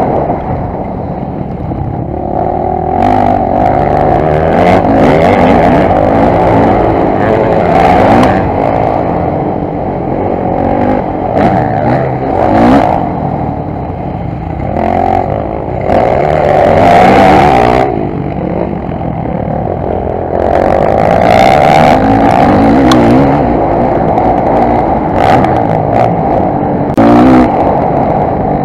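Motocross dirt bike engine, picked up by a helmet camera, revving up and falling back again and again as the rider accelerates, shifts and rolls off, with brief rushes of noise and clatter over the bumps.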